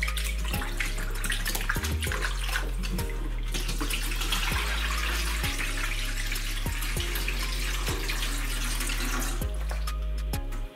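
Running and splashing water as raw chicken wings are rinsed by hand in a plastic bowl in a stainless steel sink, with water poured off the bowl into the sink. Background music with a low bass line runs underneath.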